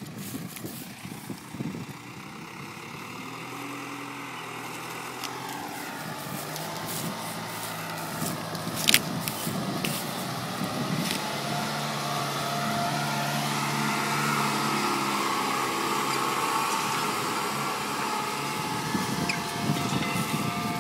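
Case IH Farmall 90 diesel tractor engine running under ploughing load, with a steady whine above the engine note, growing steadily louder. There is a single sharp click about nine seconds in.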